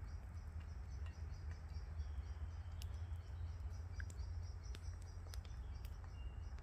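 Quiet woodland ambience: a steady low rumble with faint, high, evenly repeating chirps, a few sharp scattered clicks, and one short high bird-like chirp near the end.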